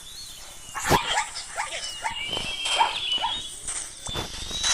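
A series of short animal yelps and whines, dog-like, over a thin high whistling tone, with a sharp knock about a second in.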